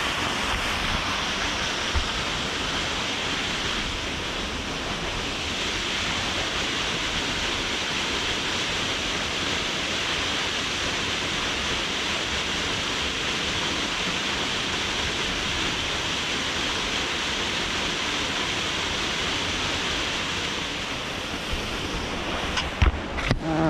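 A small waterfall rushing steadily. A few sharp knocks come near the end.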